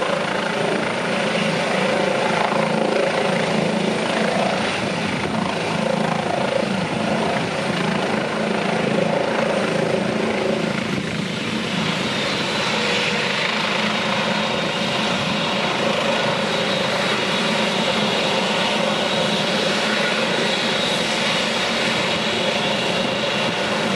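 Airbus H135 (EC135) air ambulance helicopter landing and then running on its skids with the main rotor turning: a steady, continuous turbine-and-rotor sound. A high turbine whine comes up about halfway through.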